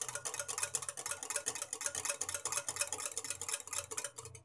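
A whisk beating curd in a glass bowl: quick, even strokes, several a second, with the wires scraping and clicking against the glass.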